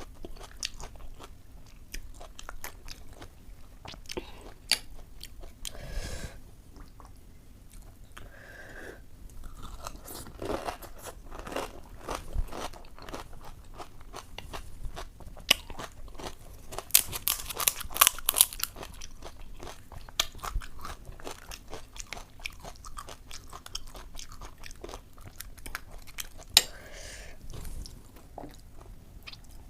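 Close-up crunching and chewing of ghugni puchka: crisp hollow puri shells cracking between the teeth and being chewed, with a burst of loud crunching about halfway through.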